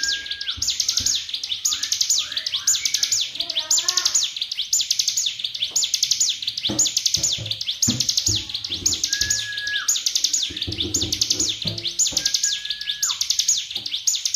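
A songbird kept as a master bird, singing a high, rapid, buzzy trilling phrase over and over, about once a second. A few lower held whistles that drop off at the end and a couple of soft knocks sound in between.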